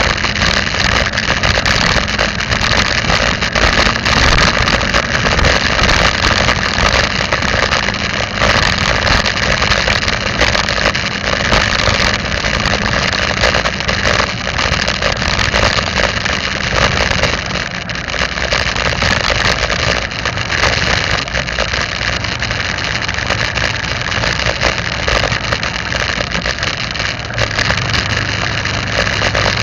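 A vehicle's engine running steadily as it drives along, mixed with wind and road noise picked up by a camera riding on the vehicle.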